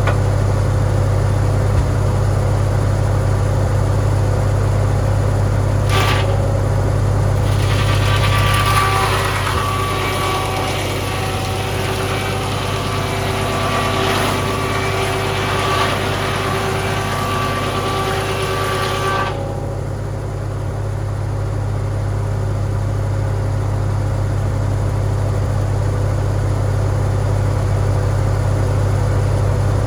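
Farmall tractor engine running steadily, with a single sharp knock about six seconds in. From about eight seconds in, a saw blade cuts through a red cedar board for about eleven seconds with a whining, rasping sound, then the engine runs on alone.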